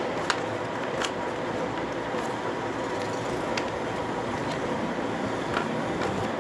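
Steady background noise with a few faint sharp clicks.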